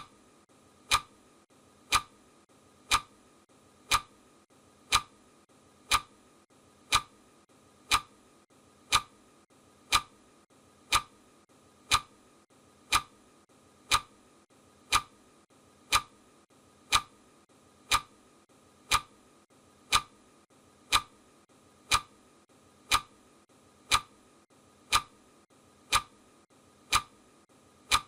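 Clock ticking steadily at one tick a second: sharp, even clicks counting off the seconds of a countdown.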